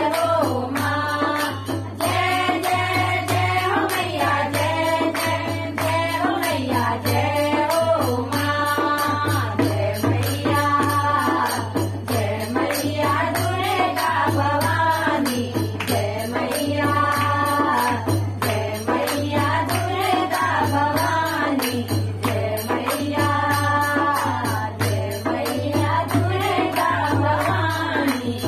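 Women singing a Pahadi devotional bhajan in chorus, their voices rising and falling in long sung phrases, over a steady rhythm from a dholak drum and hand clapping.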